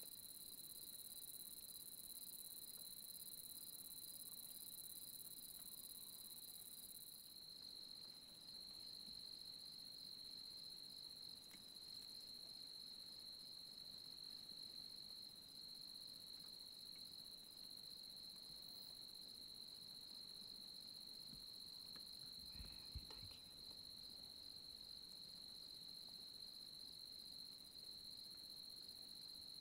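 Faint, steady high-pitched trill of night insects. There is a soft knock about three quarters of the way through.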